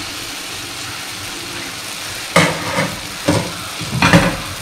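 Rice-batter achappam (rose cookie) deep-frying in hot oil, a steady sizzle. From about halfway, three louder, sharper knocks or clatters sound over it.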